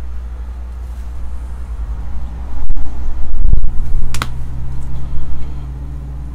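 Steady low hum with a loud stretch of handling noise about three seconds in, with a few sharp clicks and a thump, as rigid plastic card holders are swapped and handled close to the microphone.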